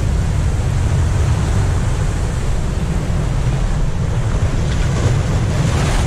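Heavy ocean surf breaking and washing over rocks at close range, a loud steady roar with a choppy low rumble of wind on the microphone.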